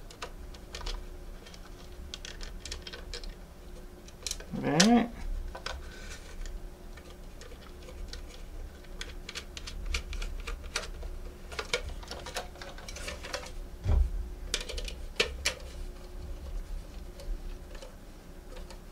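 Small plastic parts of a model railway turntable motor kit being handled and clicked together by hand: a run of light, irregular clicks and taps. About five seconds in there is a short hum from a person's voice, and a faint steady hum runs underneath.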